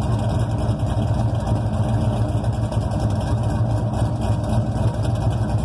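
Chevrolet Camaro Z28's LS1 V8 idling steadily, heard from beneath the car close to the exhaust pipe.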